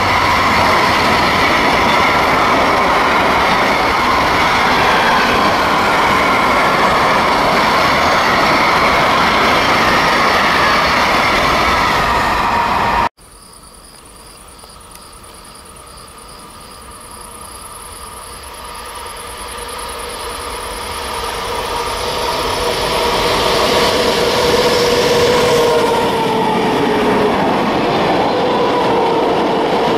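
A long train of loaded hopper wagons rolling past, with steady wheel-on-rail noise and held squealing tones. About thirteen seconds in it cuts off abruptly, and a freight train is heard approaching, growing steadily louder until its two diesel locomotives pass near the end.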